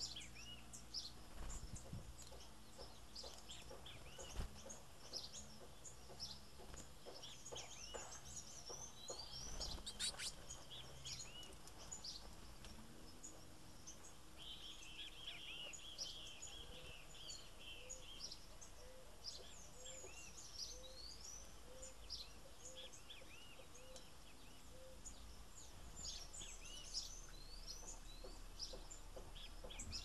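Small birds chirping and twittering, faint, with many short high calls throughout and a rapid trill about halfway through. A low note repeats about once or twice a second for several seconds in the middle.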